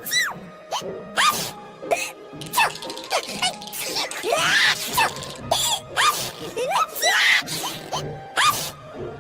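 Cartoon glee club chorus of sneezes and hiccups performed in rhythm over music: sharp sneezes and short rising hiccup yelps follow one another in quick succession.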